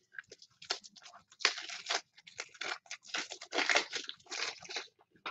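Plastic wrapping being handled, crinkling and tearing in irregular bursts.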